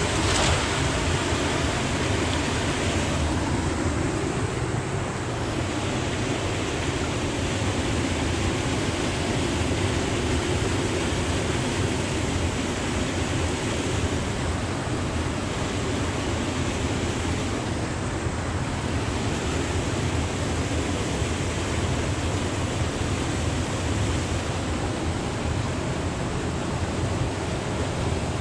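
Fast river water rushing over rocks in a steady, even wash of noise. A cast net splashes onto the water right at the start.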